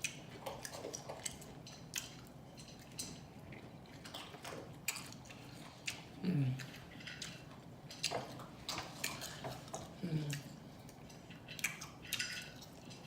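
Close-up eating: wet mouth smacking and chewing with many short clicks, some of them utensils against a plate, and two short falling 'mmm' hums of enjoyment about six and ten seconds in.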